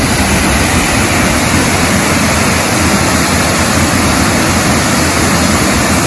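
Waterfall pouring into a pool: a loud, steady rush of water.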